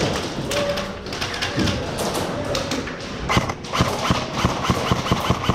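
Airsoft gun firing a rapid, irregular string of sharp shots, thickest in the second half at about four to five a second, with a distant raised voice under them.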